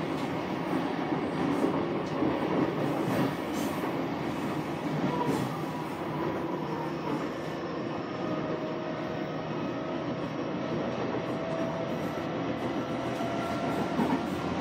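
Interior running noise of a JR East Keihin-Tohoku Line E233-series electric train at speed: a steady rumble of wheels on rails, with faint thin whining tones joining in about halfway through.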